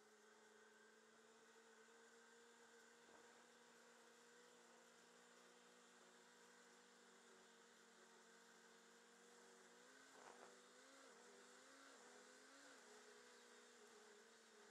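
Faint, steady engine hum from the vehicle carrying the camera. Its pitch rises and falls a few times about ten seconds in.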